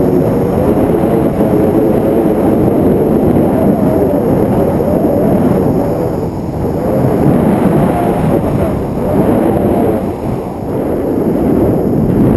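Wind buffeting the microphone of a handheld action camera during a tandem paraglider flight: a loud, steady rumble.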